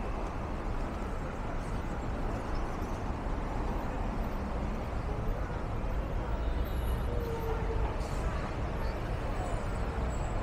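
Busy city street traffic noise: a steady wash of vehicles, with a faint held tone or two late on.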